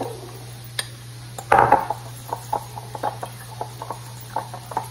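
A fork stirring an egg-and-cheese mixture in a ceramic bowl, clinking against its sides in a quick run of taps, about four a second. One louder knock comes about a second and a half in.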